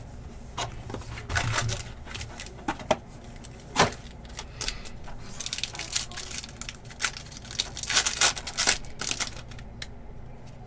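Rustling and sharp clicks as packs of Rookies and Stars football cards are handled in their box, then a foil card pack crinkling and tearing open about halfway through.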